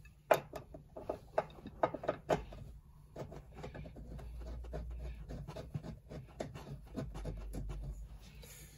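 A bolt with washers is fitted through a harness bar's rod end and turned by hand into the floor seatbelt anchor, giving small metal clicks and rubbing. The clicks come quick and sharp for the first couple of seconds, then give way to softer rubbing.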